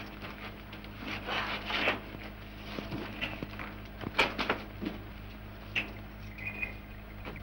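Faint scattered knocks and rustling over a steady low hum, with a brief high chirp near the end.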